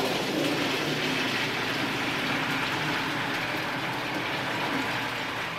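Cooking water poured from a pot of boiled peas into a kitchen sink, draining them: a steady splashing rush that eases a little near the end.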